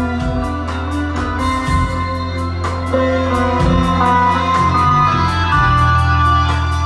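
Live rock band playing an instrumental passage between vocal lines: guitar melody over sustained bass notes and a steady drumbeat, heard from within the audience.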